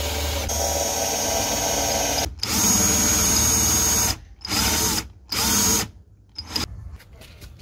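Parkside cordless drill boring into plywood with a twist bit: a long steady run, a brief stop, a second run, then two short squeezes of the trigger about a second apart near the end.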